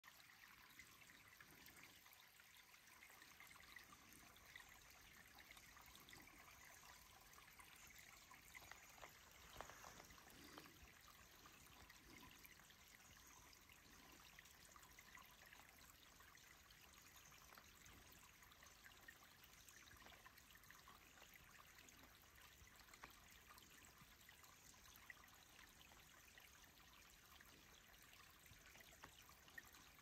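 Small, shallow forest brook trickling over stones: a faint, steady babble of water.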